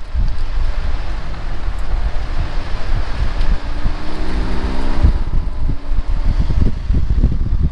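Jeepney ride: a steady, heavy low engine and road rumble with wind buffeting the microphone. A brief droning tone joins about halfway through.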